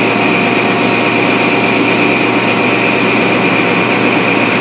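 XPT diesel power car idling while standing at the platform: a steady engine hum with a constant high-pitched whine over it.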